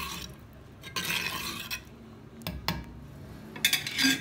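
A steel ladle stirring gravy in an earthenware pot, scraping against the clay, with two sharp clinks about two and a half seconds in and a louder clatter near the end.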